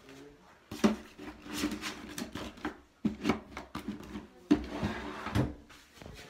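Household things being handled and moved about: several knocks and clatters with rubbing and rustling between them. The sharpest knocks come about a second in, at about three seconds, and twice more near the end.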